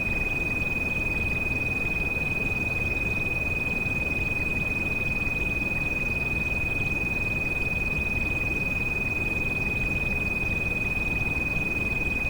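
A steady high-pitched pure tone, a tinnitus treatment frequency, held without change over a continuous bed of rain noise.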